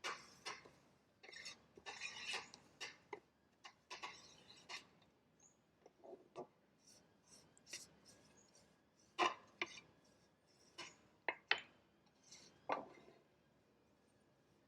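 Metal steaming tray being handled and greased, with irregular clinks, taps and short scrapes of utensils against it.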